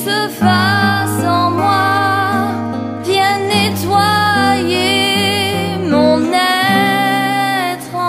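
Christian worship song: a woman singing long held notes with vibrato over a steady accompaniment with sustained bass notes.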